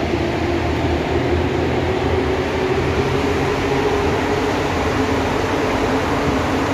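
Santiago Metro train running through the tunnel, heard from inside the car: a steady rumble with a hum of several tones over it.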